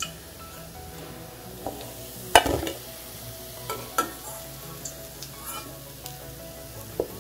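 Hot oil sizzling steadily around deep-fried baby corn that is done and being lifted out with a steel slotted spoon, with a few sharp metallic knocks, the loudest about two and a half seconds in.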